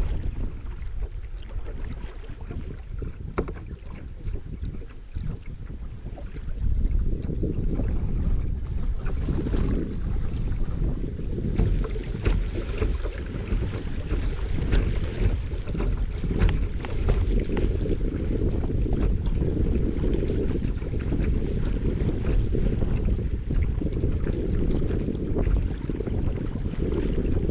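River current rushing and splashing against a kayak's hull through a riffle, with a low rumble of wind on the microphone; it grows louder about seven seconds in.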